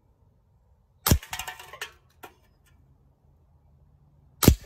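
Two shots from a CO2 airsoft Schofield revolver about three and a half seconds apart, each a sharp crack followed by the clattering rattle of an aluminium drink can being hit and knocked about on the table. A light click falls between the shots.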